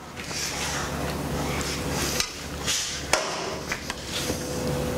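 Cooked ground lamb being scooped and spread onto a tortilla: steady scraping with a few sharp knocks of a utensil.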